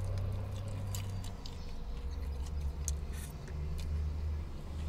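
Low steady hum of a car running while parked, with faint clicks and smacks of chewing fried chicken and pulling the meat off the bone.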